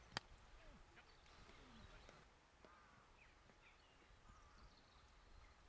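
A single sharp crack of a cricket bat striking the ball, then faint bird chirps.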